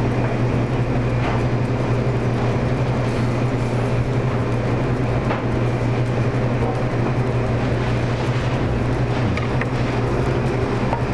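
Steady low drone of a commercial kitchen's ventilation, with a deep hum under a fan-like rush. A few faint knocks of a knife on a plastic cutting board.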